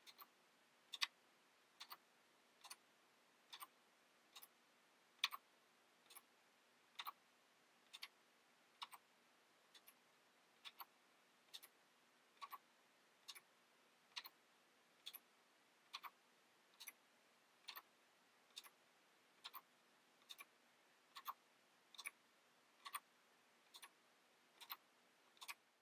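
All-plastic 3D-printed clock ticking steadily, a little under once a second, as its pallet fork and escape wheel click against each other with the plastic hairspring swinging. The clock is running under its own power now that ball bearings have cut the friction.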